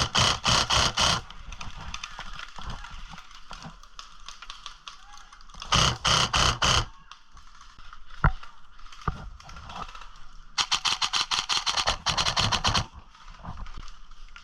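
Airsoft electric guns firing rapid full-auto bursts, three bursts spread over several seconds, with a single sharp crack in between.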